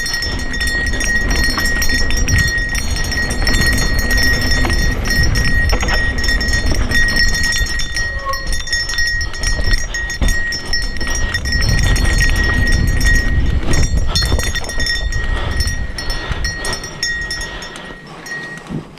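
Santa Cruz Nomad mountain bike riding down a rocky trail: heavy wind rumble on the camera microphone with the knocking and rattling of tyres, chain and frame over rock, easing off near the end.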